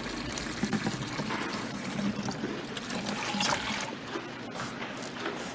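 Liquid pouring steadily, with small irregular splashes.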